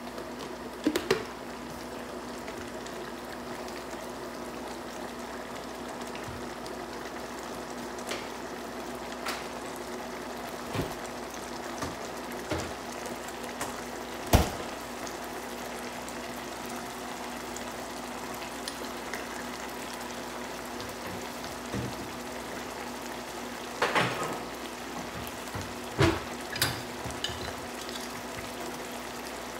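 Picadillo sauce simmering in a pan to reduce: steady bubbling with scattered sharp pops as bubbles burst, the loudest about halfway through and a few more close together near the end, over a steady low hum.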